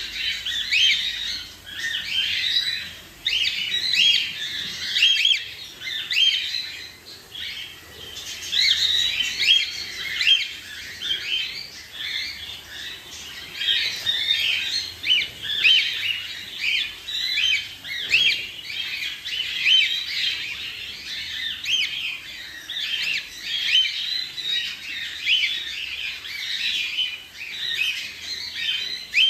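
Baby cockatiels chirping, a dense stream of short calls several times a second.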